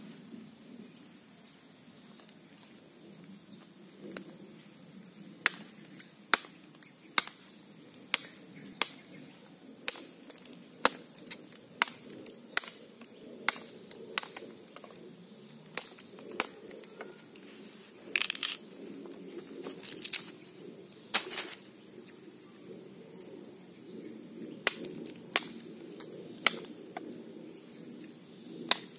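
Large bushcraft knife striking and shaving a green wooden stick in short, sharp chopping strokes, irregular but roughly one a second, with a few longer scraping cuts in the middle.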